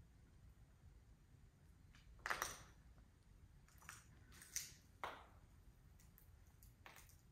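A few scattered footsteps scuffing on a debris-strewn floor: about five short scuffs, the loudest about two seconds in.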